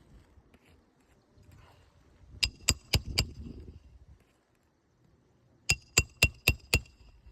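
Roofing hammer striking a roof snake to drive shingle nails: a run of four sharp, ringing metal strikes, then a run of five more a couple of seconds later, about four strikes a second.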